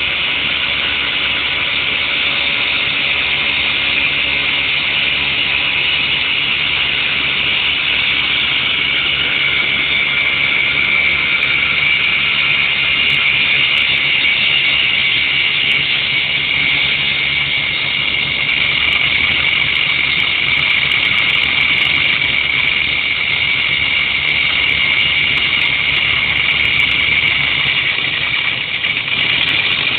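CNC wood lathe running and cutting a wooden workpiece: a loud, steady, high-pitched whirring of the spindle and cutting tool, with a lower hum underneath that drops away near the end.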